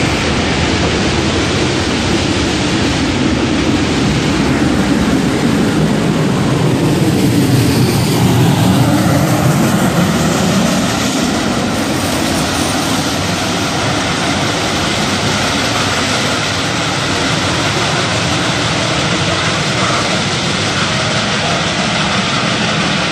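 Pacific Coast Shay geared steam locomotive passing close by as it shoves open passenger cars upgrade, its exhaust and running gear working hard. It is loudest about eight seconds in as the engine goes by, then carries on steadily as it moves away.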